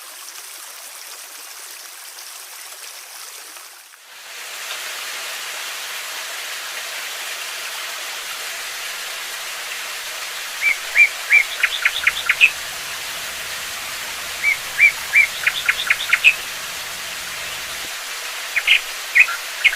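Steady rush of flowing water that changes abruptly about four seconds in to a louder, brighter rush, like a waterfall. Over it a songbird sings the same short song three times: a few separate chirps, then a quick run of notes.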